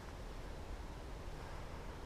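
Steady, faint hiss with a low rumble underneath; no distinct clicks, shots or voices.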